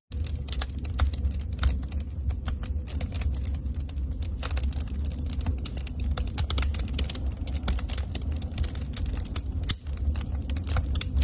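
Wood fire crackling and popping inside a barrel wood stove, many sharp irregular snaps over a steady low rumble.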